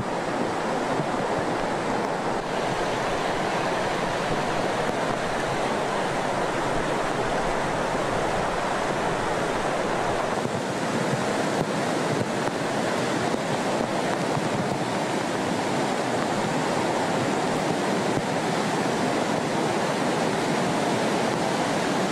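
Steady rushing noise of water and wind, an even roar with no engine note or other distinct events, unchanging throughout.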